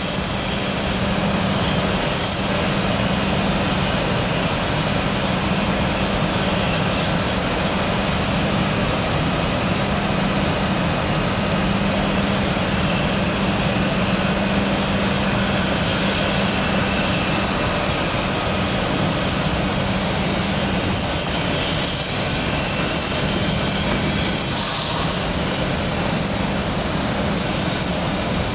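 Steady drone of sugar-mill machinery, with a low hum and a thin high whine, while an Orenstein & Koppel fireless steam locomotive runs slowly on narrow-gauge track. A short hiss rises over the drone several times.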